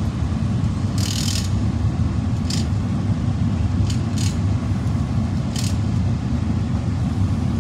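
Steady low outdoor rumble with a few brief, hissy rustles.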